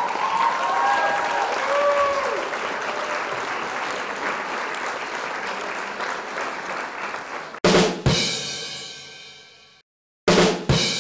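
Intro sound effect: a crowd cheering and applauding. About seven and a half seconds in it gives way to two pairs of drum and cymbal crashes, each pair ringing out and fading.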